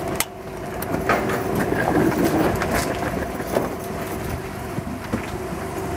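A minibus engine idling with a steady hum, overlaid with irregular knocks and rattles of suitcases being taken out of its luggage bay and rolled away.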